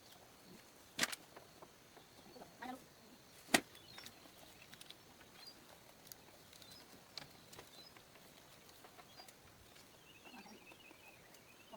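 Two sharp knocks about two and a half seconds apart, against faint bird chirping.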